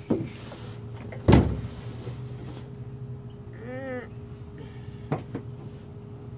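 A single sharp thump about a second in, with a couple of fainter knocks, over a steady low hum.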